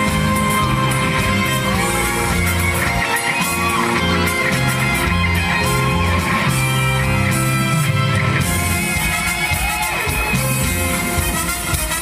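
Trot song music with electric guitar over a steady pulsing bass line, played loud and continuous.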